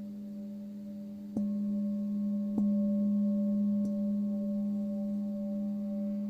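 Tibetan singing bowl ringing with a steady low tone and several overtones. It is struck three times, about a second and a half in, then just over a second later, then more softly near the two-thirds mark, and each strike renews the ring.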